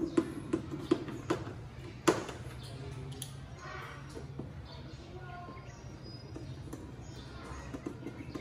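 Screwdriver turning a tail light retaining screw back in, with a run of light clicks through the first second or so and one sharp click about two seconds in.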